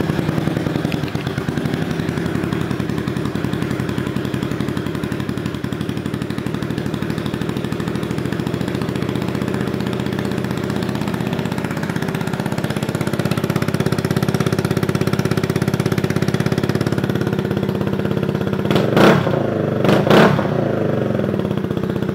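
2012 Honda CBR250R's 249 cc single-cylinder engine, fitted with an aftermarket exhaust pipe, idling steadily just after start-up. Near the end the throttle is blipped twice, two quick revs about a second apart.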